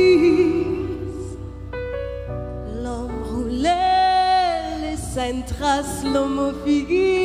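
Live band music: a female lead voice sings long, wavering notes over sustained electric keyboard chords. A held note fades just after the start, a quieter stretch of chords follows, and new sung phrases rise in about halfway through and again near the end.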